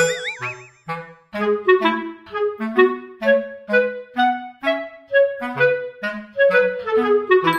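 Background music: a bouncy clarinet-led tune of short notes over a bass line, with a short wobbling boing-like sound effect at the start and a brief pause about a second in.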